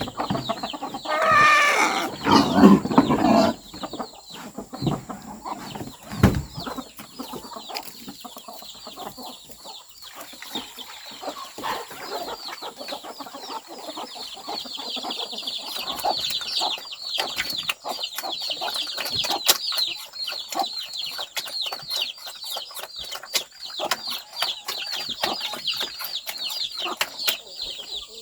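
Chickens clucking and calling, loudest about a second or two in, then a long run of quick, high, repeated calls.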